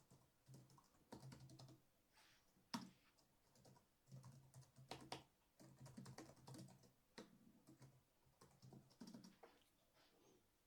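Faint, irregular typing on a computer keyboard: quick key clicks in uneven runs, with one sharper click about three seconds in.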